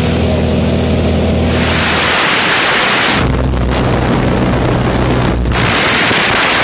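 A small jump plane's engine droning steadily, with loud surges of wind rushing over the microphone about a second and a half in and again near the middle.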